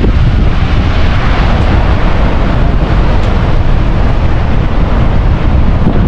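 Steady, loud roar of Niagara Falls' water crashing into the gorge, mixed with wind buffeting the microphone.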